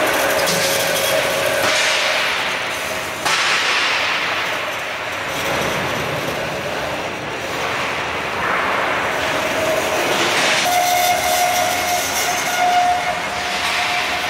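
Automatic rebar sawing and threading line running: a steady clatter of machinery and steel bars on roller conveyors, with a steady whine under it. The noise jumps up suddenly a little over three seconds in, and a stronger, higher whine comes in about ten seconds in.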